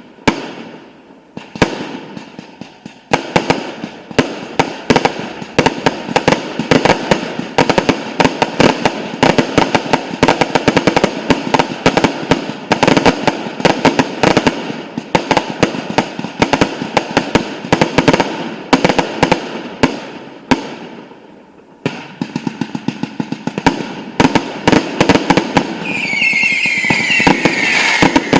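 Fireworks going off in rapid, dense volleys of sharp bangs and crackles, with a brief lull about three quarters through. Near the end a cluster of whistling effects sounds together, falling in pitch, over the bangs.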